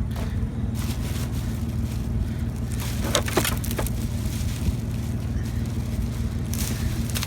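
Vehicle engine idling steadily, with short crunching and rustling noises from curbside trash being handled, a few times.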